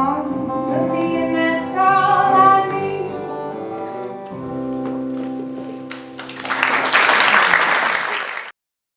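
Live acoustic folk band ending a song: singing over guitar, then a final chord held and fading. Audience applause breaks out about six seconds in and cuts off abruptly near the end.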